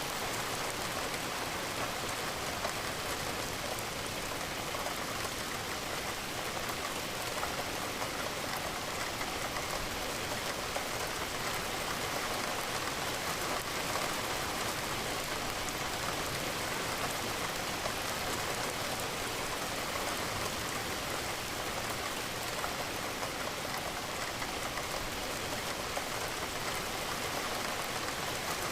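Steady rain falling against a window, an even hiss of many small drops that holds level throughout.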